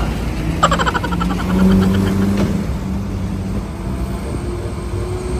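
Heavy road vehicle's engine running steadily, a low rumble with a hum.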